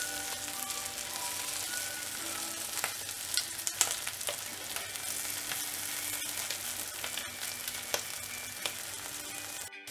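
Dried ribbonfish pieces frying in shallow oil in a nonstick pan: a steady sizzle with scattered sharp pops and crackles, and a wooden spatula stirring and scraping the fish around. The sound cuts out for a moment just before the end.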